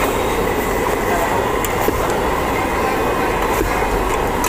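Busy street-food stall ambience: a steady babble of crowd chatter over a low, continuous rumble of street traffic.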